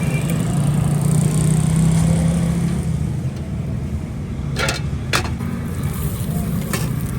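A vehicle engine running steadily with a low hum, with three sharp clicks or knocks in the second half.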